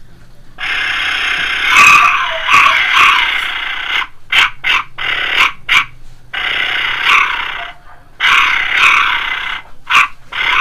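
Fired clay jaguar whistle, a pre-Hispanic-style ceramic whistle, blown hard. It gives a rough, breathy growl: one long blast, a run of short puffs, then three more blasts.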